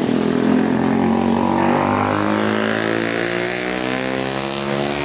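Jet engines of a Boeing 737-800 airliner on final approach, flying low past: a loud, continuous engine noise with a whine whose tones shift and slide as the aircraft passes.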